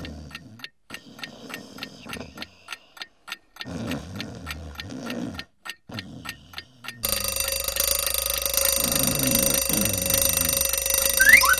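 Alarm clock sound effect: steady ticking, about three or four ticks a second, then about seven seconds in the alarm bell starts ringing loudly, with two short rising whistles near the end.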